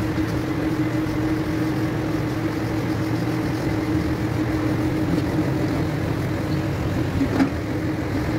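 A steady mechanical hum holding one constant low tone over an even background noise, with a few faint clicks.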